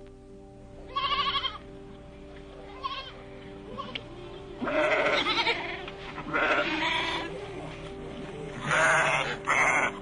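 A lamb bleating repeatedly: about six wavering bleats of different lengths, the longest near the middle and the loudest near the end, over steady background music.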